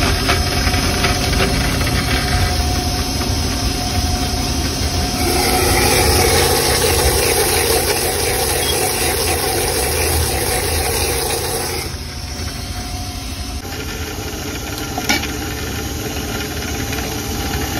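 Electric mixer-grinder blending a drink in its jar, its motor whirring steadily. It gets louder about five seconds in and falls to a lower, steadier level around twelve seconds.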